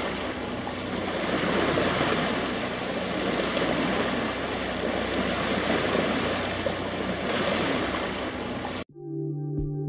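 Steady rush of water and wind with a faint low hum. It cuts off suddenly about nine seconds in, and calm ambient synthesizer music begins.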